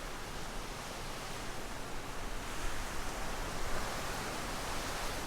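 Strong hurricane wind rushing through trees as a steady noise, swelling slightly about halfway through.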